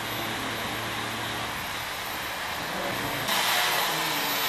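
A steady workshop hum and hiss, then about three seconds in a sudden switch to a louder, even hiss of an electric hand power tool running against a steel locomotive buffer head as it is finished.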